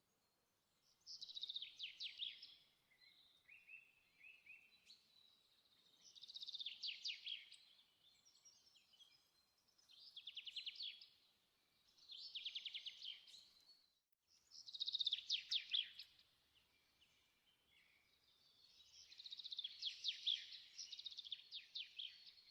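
A songbird singing: six phrases of rapid high trills, each one to three seconds long, separated by short pauses.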